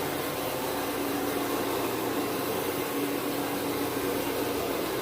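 A vacuum motor running steadily on carpet: an even rush of suction with a steady hum.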